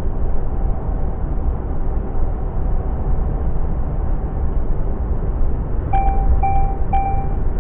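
Steady engine and road drone inside a DAF lorry's cab cruising at motorway speed. Near the end, three short electronic beeps sound about half a second apart.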